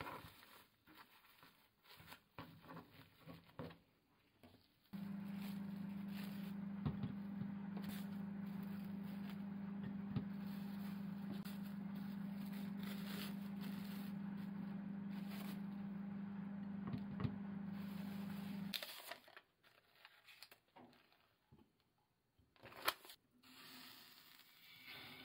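Cling film crinkling and rustling around a sushi roll. Then a steady machine hum starts abruptly, runs for about fourteen seconds and cuts off, followed by a few light knocks and clicks, one sharper near the end.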